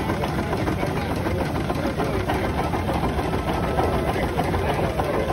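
Steam engine running steadily without load at its governed speed of about 150 rpm; the centrifugal governor has closed the butterfly throttle, so no distinct exhaust beats are heard.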